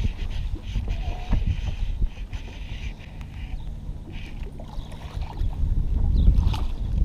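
Wind buffeting the camera microphone, a low uneven rumble, with a few faint clicks from a baitcasting reel being handled.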